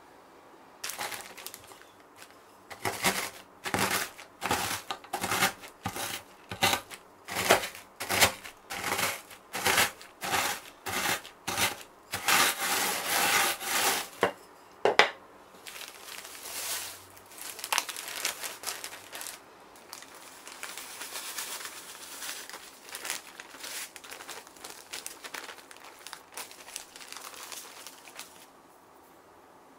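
Oreo cookies crushed inside a plastic zip-lock bag with a wooden rolling pin: sharp crunches with crinkling plastic, about two strokes a second. About halfway through this gives way to a softer, steadier rolling crunch and crinkle.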